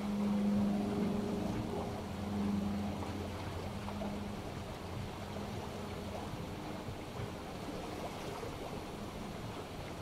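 Sea waves washing and breaking on a beach, with an airplane's low engine drone that fades out by about halfway through.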